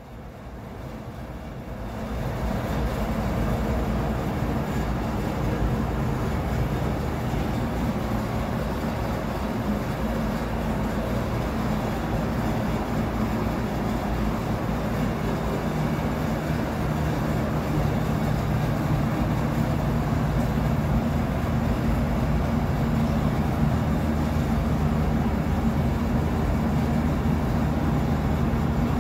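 A steady mechanical drone with a low hum, rising in over the first two seconds and then holding level.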